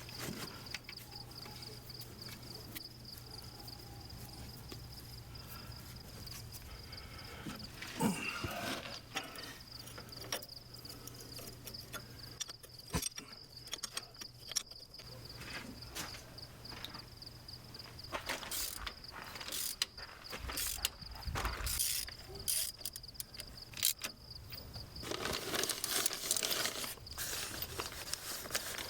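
A steady high-pitched insect trill throughout, with scattered clicks, knocks and clanks of mechanical work on the backhoe, busier near the end.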